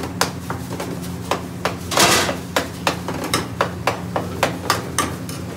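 Metal spoon knocking and scraping against steel frying pans while sauces are stirred on the stove: a fast run of sharp clicks, about four a second in the second half, with a short rush of noise about two seconds in. A steady low hum runs underneath.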